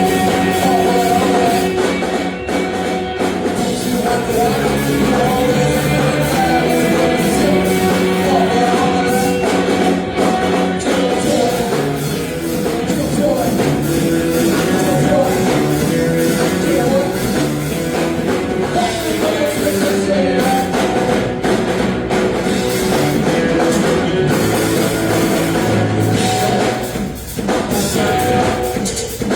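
Rock music with a singing voice and a drum kit, playing steadily.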